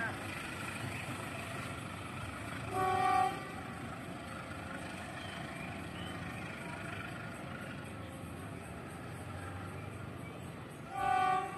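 Two short, distant horn blasts from a CC 201 diesel locomotive at the head of a departing passenger train, one about three seconds in and one near the end, over the steady low noise of the train moving away.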